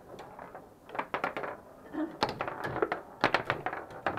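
Table football in play: rapid hard clacks and knocks as the ball is struck by the rod-mounted plastic players and bangs against the table. They come in quick flurries with short pauses between.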